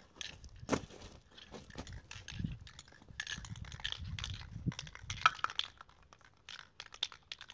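Crunching footsteps on gravel and clicks and clinks of a spray paint can being handled, in a run of short, irregular sounds.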